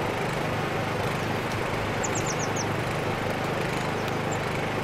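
Steady rushing outdoor noise with a low engine-like hum beneath it. About two seconds in, a bird gives a quick run of five high, falling chirps.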